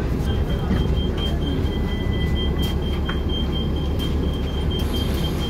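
Steady low engine and cabin rumble inside a Züm city bus creeping to a stop, with a rapid high-pitched electronic warning beep of about four beeps a second.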